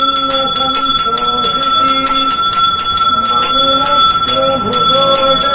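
Temple bell rung rapidly and without a break, its ringing tone held steady, with a low monotone chant going on beneath it.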